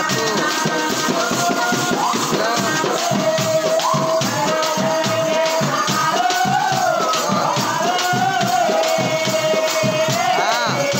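Live South Indian folk music for a stick dance: a man singing a wavering, gliding melody over two-headed hand drums and small hand cymbals keeping a dense, jangling beat.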